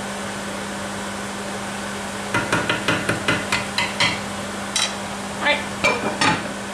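A wooden spatula stirring thick lentil curry in a pot, a quick run of knocks and scrapes against the pot's sides, then a few clinks as the glass lid is set back on near the end. A steady hum runs underneath.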